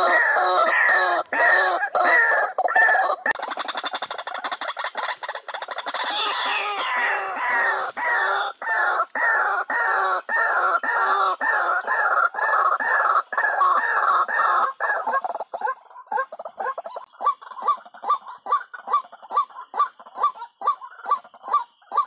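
White-breasted waterhen calling: a harsh, croaking note repeated about twice a second. Near the end the notes turn sharper and more clipped, and a steady high whine joins them.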